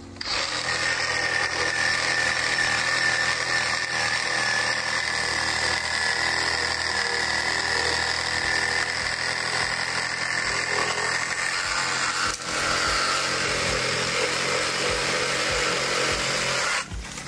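Cordless chainsaw cutting through a tree branch, running with a steady whine for about seventeen seconds, dipping briefly about twelve seconds in, then stopping just before the end.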